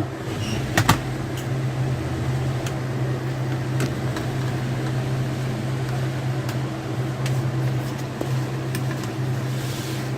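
A steady low mechanical hum with a few light clicks over it, the sharpest about a second in.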